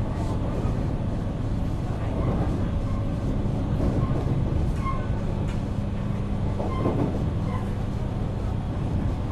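Running sound inside a JR West 475 series express-type electric train's motor car, fitted with MT54 traction motors: a steady low hum over the rumble of the wheels and track. A few sharp clicks come through at irregular intervals.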